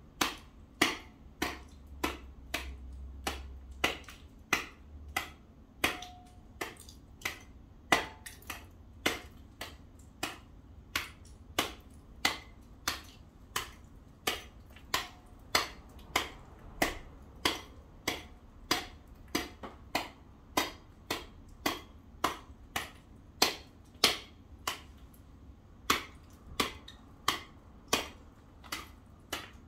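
A hand tool chipping at packed ice on a paved driveway: sharp, even strikes about two a second, some louder than others.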